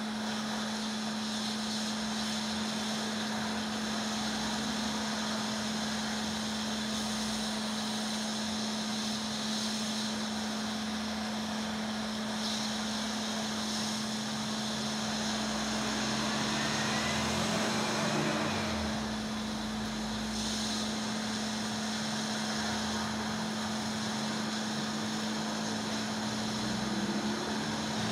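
Hot air rework station blowing on a circuit board to melt the solder of a MOSFET being fitted: a steady rushing hiss over a constant low hum, with a brief swell a little past the middle.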